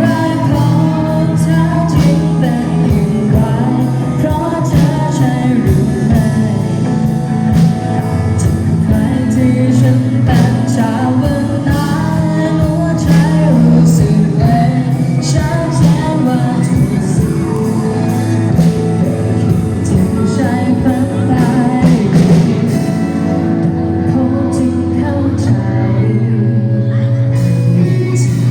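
A band playing a rock song with a lead singer over a steady drum beat and bass.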